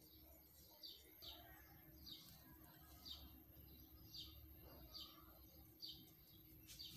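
A bird chirping faintly, short single chirps repeating about once a second over quiet room tone.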